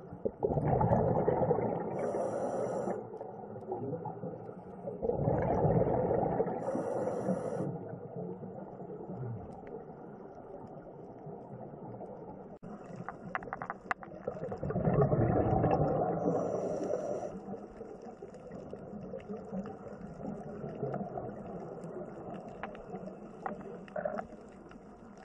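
Underwater sound of a scuba diver breathing through a regulator: three long surges of exhaled bubbles rumbling, about a second in, around five seconds in and around fourteen seconds in, each ending with a short high hiss, over a low steady underwater background.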